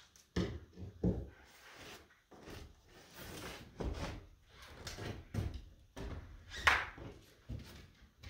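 Irregular wooden knocks and thuds from work on roof boards and rafters, with one sharper, louder knock near the end.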